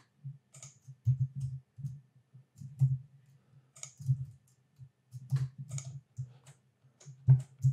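Computer keyboard keys and mouse buttons clicking in scattered, irregular taps as editing shortcuts are entered.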